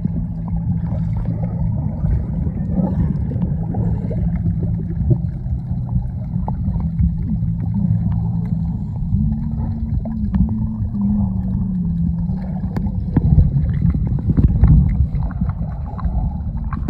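A boat's motor running steadily under low rumbling wind and water noise. Its pitch shifts up and down for a couple of seconds around the middle.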